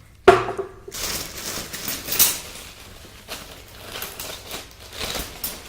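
Sound-effect foley: a sharp knock just after the start, then rustling, crinkling and light clicking as wrapped tools are unwrapped and handled.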